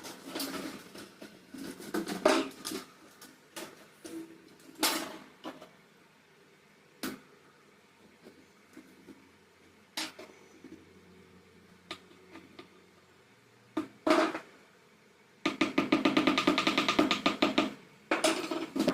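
Scattered knocks and clicks of table fan parts being handled, then a fast rattle lasting about two and a half seconds near the end.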